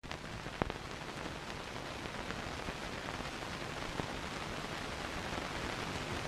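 Steady hiss of an old film soundtrack with a few sharp pops, the strongest two about half a second in and near the middle.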